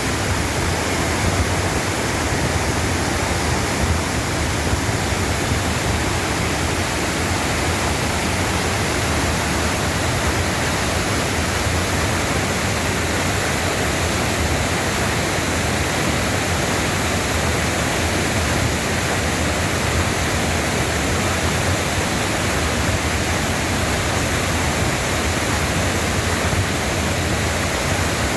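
Waterfall in a mountain valley pouring into its pool: a loud, steady rush of falling water that does not let up.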